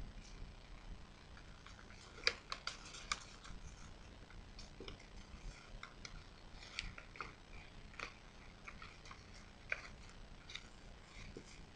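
Origami paper being folded and creased by hand on a tabletop: scattered crisp paper crackles and taps, with a quick cluster of them about two to three seconds in.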